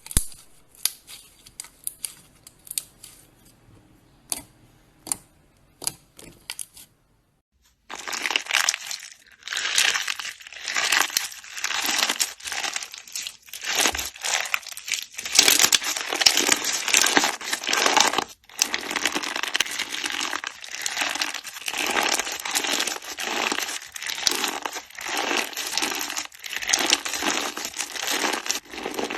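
Slime being squeezed and pressed by hand: at first a few scattered sharp clicks and pops, then, after a short gap, a dense, continuous crackling and crinkling.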